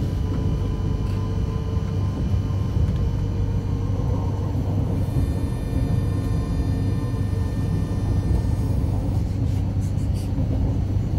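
Steady rumble of a moving passenger train heard from inside the carriage, with a constant low hum and a faint whine that fades out about halfway through.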